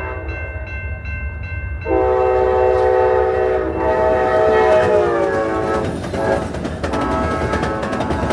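Amtrak locomotive horn sounding a long, loud blast about two seconds in, its pitch dropping near the middle as the train passes, then a second blast near the end over the clatter of wheels on the rail joints. Before the horn, a bell rings quickly and steadily.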